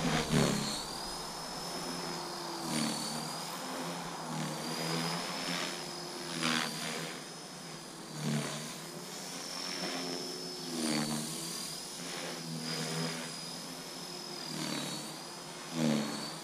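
Electric Align T-Rex 450 RC helicopter in flight: a high, steady motor whine that wavers slightly, over a lower rotor sound that rises and falls in pitch as the power and pitch change.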